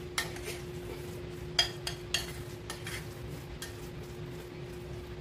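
Boiled potato mashed with crushed corn being mixed by hand in a glass bowl: several sharp clinks against the glass, scattered irregularly, over a steady low hum.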